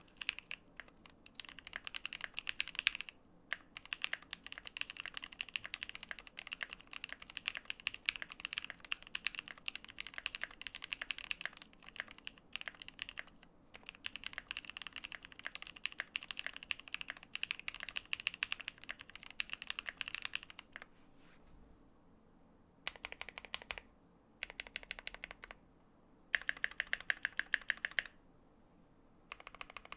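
Fast, continuous typing on a Tofu65 mechanical keyboard with lubed NovelKeys Cream linear switches in an aluminium plate, GMK keycaps and case foam: a dense run of keystroke clacks. After about twenty seconds it breaks into a few short bursts with brief pauses between them.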